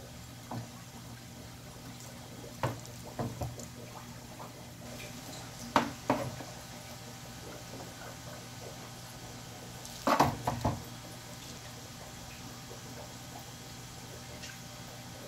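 Live eels in a shallow bucket of water, held under a pole-mounted electric stunner, thrash and splash in a few sudden wet slaps. The loudest come about six seconds and ten seconds in, over a steady low hum.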